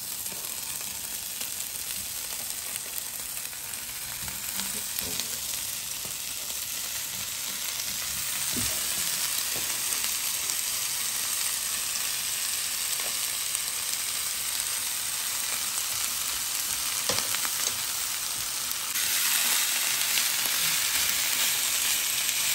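Julienned sausages and smoked meats sizzling in a dry frying pan: a steady frying hiss that grows louder and steps up further about three-quarters of the way through, with a couple of light knocks.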